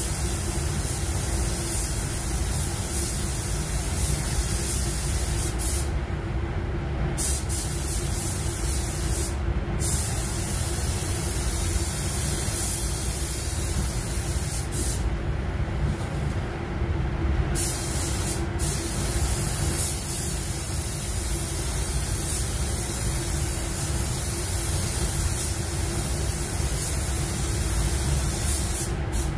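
Compressed-air spray gun hissing as basecoat is sprayed, in long passes broken by a few short pauses when the trigger is released. Underneath, a steady low drone from the spray booth's air system.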